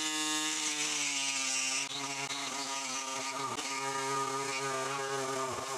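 Handheld power tool running steadily while cutting through the original rubber-and-metal driveshaft centre support carrier, its pitch dipping briefly now and then as it bites.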